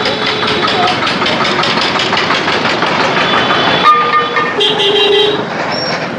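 Busy road traffic noise with several vehicle horns tooting in the second half, a few short blasts one after another.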